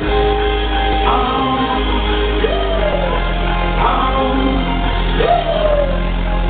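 Music with a singing voice over a heavy, steady bass, the voice sliding up and down in repeated phrases.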